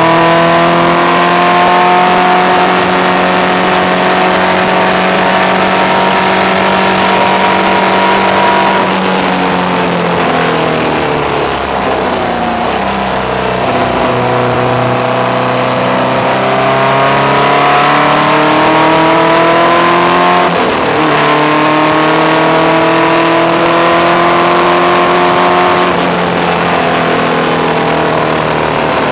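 Race car engine heard from on board, held at high revs along the straight, then falling as the car slows for a corner about ten seconds in. It then climbs again on the way out, dips once with a gear change a few seconds later, and climbs again, over steady wind and road rush.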